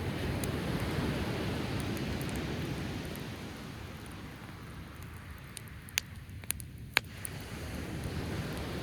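Waves washing in on the shore, swelling and then easing off, with three sharp pops from a crackling driftwood fire about six to seven seconds in.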